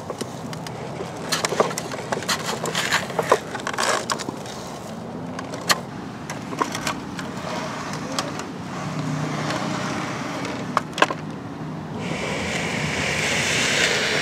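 Scattered clicks and knocks of a Tonka steel toy backhoe being worked by hand, its shovel arm moving and sand pouring from the shovel. Near the end a steady hiss rises.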